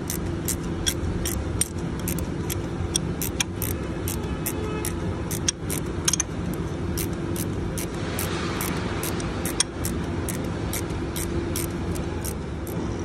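Ratchet wrench clicking steadily, about two to three clicks a second, as the timing belt tensioner bolt is worked loose, over a steady hum.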